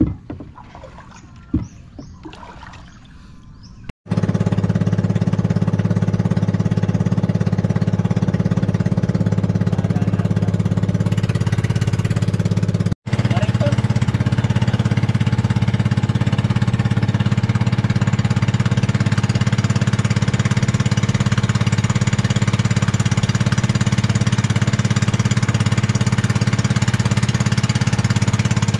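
Small engine of a wooden outrigger fishing boat running steadily under way: a loud, even, rapid chugging. It comes in abruptly about four seconds in, after a few quieter knocks, and drops out for an instant partway through.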